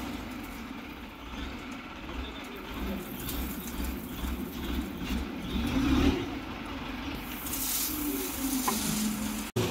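A loader's diesel engine running with a low, pulsing rumble as its hydraulic-tipped bucket dumps crushed stone aggregate into a steel batching bin. The gravel pours in with a hiss toward the end.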